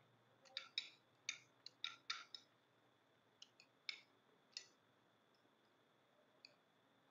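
Metal spoons clicking against ceramic plates as two people scoop up rice and stew: a quick run of sharp clicks in the first couple of seconds, then a few more spaced ones.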